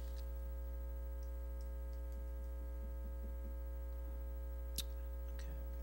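Steady electrical mains hum with a stack of even overtones, with a few faint ticks and one sharp click a little before five seconds in.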